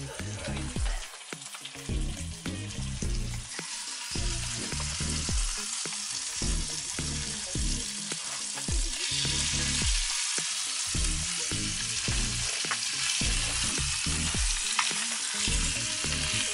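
Chunks of burbot frying in butter in a small pan on a canister camp stove: a steady sizzle that grows louder about three and a half seconds in and again about nine seconds in.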